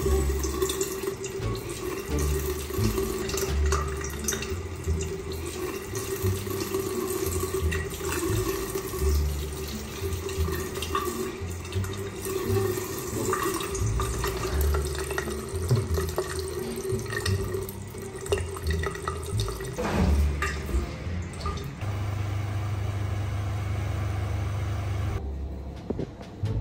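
Water running from a bathroom mixer tap into a ceramic basin, stopping near the end.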